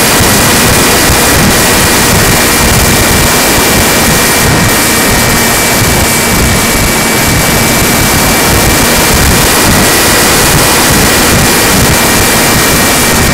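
Electric motor of a RadJet RC plane running steadily at high power, a constant high whine over loud rushing air noise.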